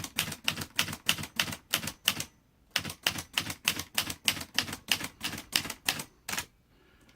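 Olivetti Lettera 32 manual typewriter being typed key by key at a steady pace, about four sharp typebar strikes a second. The strikes pause briefly a little past two seconds in and stop near the end.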